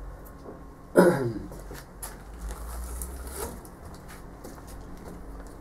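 A single loud cough about a second in, from a man with a heavy cold, its voiced tail falling in pitch. Faint rustling and clicks follow.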